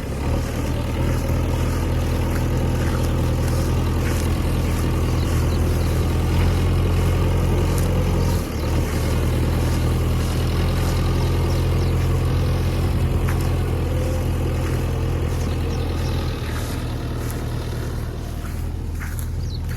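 Diesel engine of a JCB 3DX backhoe loader running steadily as it digs and loads, its level dipping briefly about eight seconds in.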